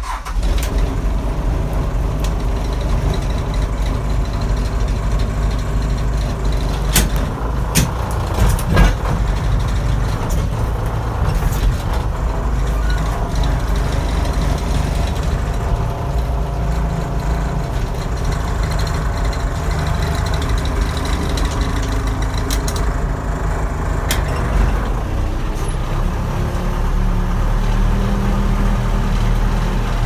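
1980 Case 580D backhoe engine catching as the key is turned, then running steadily as the machine drives, with a few sharp clanks in the first ten seconds. Near the end it picks up speed.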